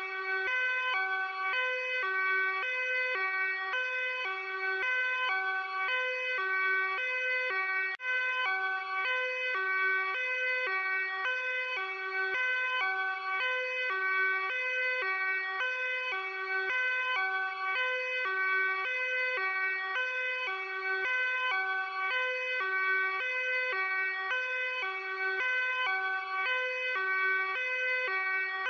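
Luxembourg police car's hi-lo two-tone siren, switching steadily back and forth between a high and a low note, with a momentary drop in level about eight seconds in.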